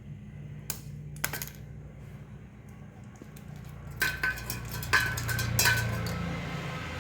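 Metal tools and fittings clinking and tapping: a couple of light clicks, then a cluster of louder ringing metallic taps about four to six seconds in, over a steady low hum.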